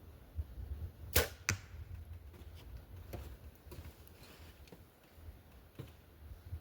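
A bow being shot at a practice target: a sharp snap as the string is released, then a second sharp hit about a third of a second later as the arrow strikes the target. A few fainter clicks follow.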